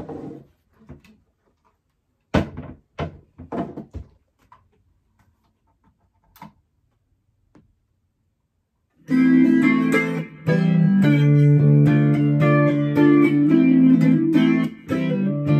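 A few scattered clicks and knocks, then about nine seconds in an electric baritone ukulele starts being played through a small practice amp, loud plucked notes ringing over one another.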